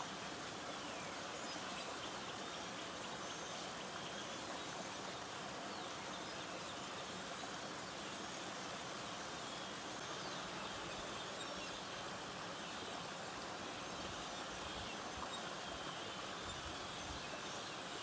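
Small creek flowing steadily over a fallen log, its water running in an even rush.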